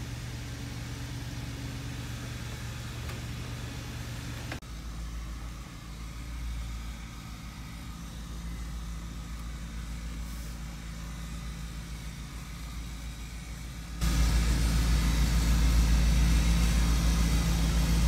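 An engine idling steadily with a low, even hum, getting louder about fourteen seconds in.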